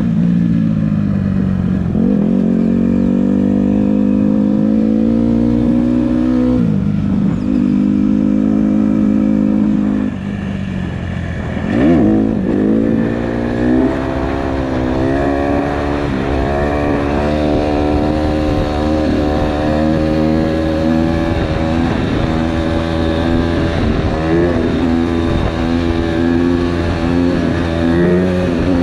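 Honda CRF150R's single-cylinder four-stroke dirt-bike engine pulling hard under a rider, its pitch climbing and holding before dropping at gear changes about 7 and 11 seconds in, then riding along with frequent small throttle rises and falls.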